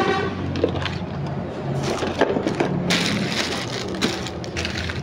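Clear plastic packaging bags crinkling and rustling as they are handled, with irregular crackles and a longer rustle about three seconds in.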